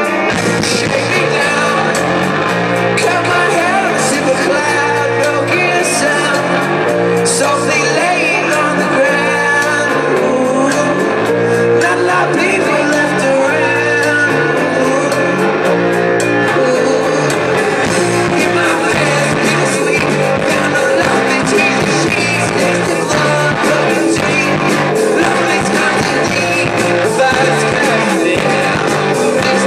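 Rock band playing live: a male lead vocal sung over electric guitar, bass and a steady drum beat, loud and continuous.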